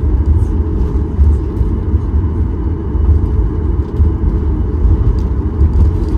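Steady low rumble inside the cabin of a Boeing 737 MAX 8, heard from a window seat: engine and airflow noise with no single event standing out.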